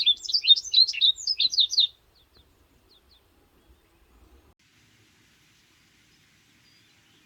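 A songbird singing a quick run of sharp, down-slurred chirping notes for about two seconds, followed by a few faint chirps.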